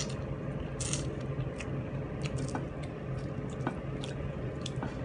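Someone eating rice and fish with her fingers: wet chewing and lip smacks, with short sharp clicks scattered throughout, over a steady low hum.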